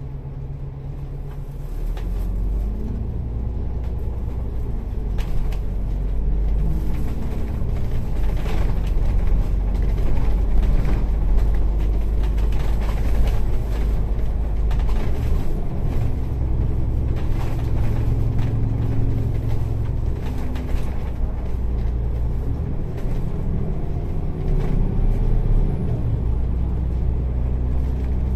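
Public bus heard from inside the passenger cabin on the move: a low engine drone that shifts in pitch a few times, with frequent rattles and knocks from the body.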